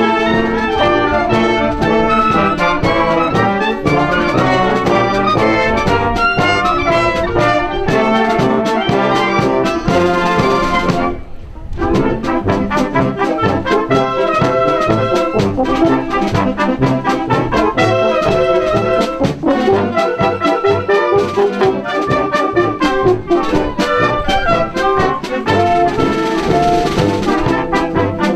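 A wind band playing a piece led by trumpets and trombones, with clarinets. The music breaks off briefly about eleven seconds in, then carries on.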